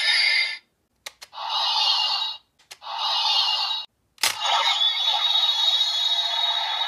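Electronic sound effects from an Ultraman Ginga Spark transformation toy, played through its small speaker with no bass: three short bursts, then a sharp click and a longer continuous effect.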